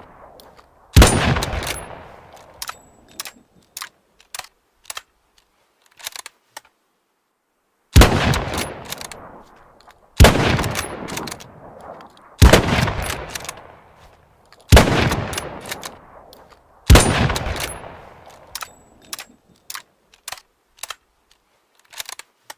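Mosin-Nagant bolt-action rifle (7.62×54R) firing six single shots, each with a trailing echo. The first shot is followed by a long pause, and the last five come about two seconds apart. Fainter sharp clicks fall between the shots.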